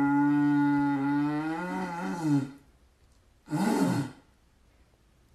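A long tube blown like a didgeridoo or horn: a low steady drone for about two and a half seconds that wavers in pitch near its end, then a second short wavering blast about a second later.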